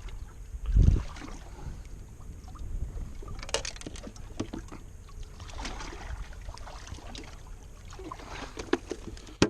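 Handling noise aboard a small fishing boat: one heavy, dull thump about a second in, then scattered small clicks and knocks, and a sharp knock at the very end.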